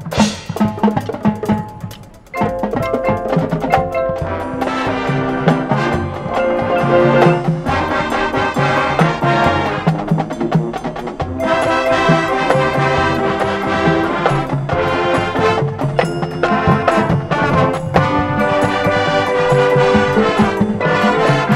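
High school marching band playing its field show: sustained brass chords over marimba and other front-ensemble mallet percussion, with drums. A loud crash at the very start rings away, and the full band comes back in about two seconds later.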